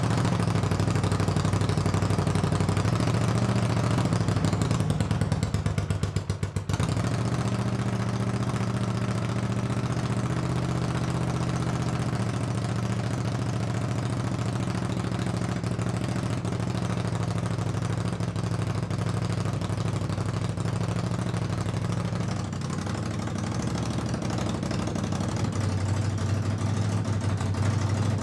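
1978 Honda CX500's water-cooled V-twin engine running just after starting, uneven for a moment about five seconds in, then idling steadily. It is running on both cylinders, but not yet perfectly.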